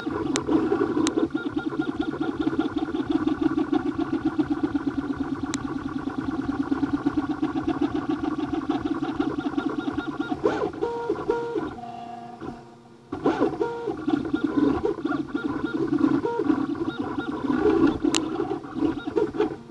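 Flashforge Creator (AX1058) 3D printer printing: its stepper motors buzz and whine in a fast back-and-forth rhythm, then from about halfway in short tones that jump between a few pitches as the moves change, with a brief quieter lull partway through.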